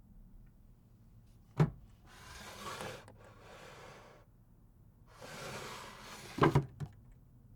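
Wooden drawer: a sharp knock, then the drawer slides open with a long wooden scrape. A few seconds later it slides back and shuts with a double knock, followed by one lighter knock.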